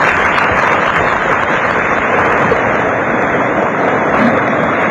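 A steady, loud rushing noise with no tone in it, starting abruptly just before and holding even throughout.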